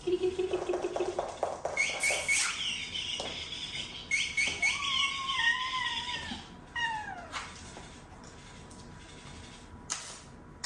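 Motion-activated electronic sandpiper cat toy set off: a short pulsing buzz of its flapping wings, then rapid high chirps and a long wavering call that falls in pitch. A couple of clicks near the end.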